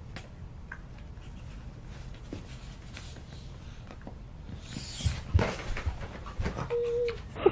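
A beagle scuffling on carpet with a toy football while a baby tips out of a toy chair, giving a few soft thumps and knocks in the second half. A brief single-pitched squeal comes near the end.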